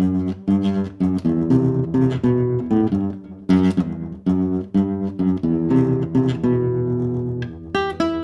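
Kremona F65 nylon-string classical guitar picked in a run of chords and single notes, about two a second, with the HyVibe System-1 tremolo effect switched on, the effect sounding from the guitar's own body through its actuators.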